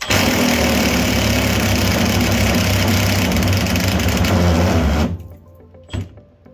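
Battery-powered power tool running flat out on a rusted body bolt for about five seconds, then cutting off: its battery is running flat. A single sharp knock follows about a second later.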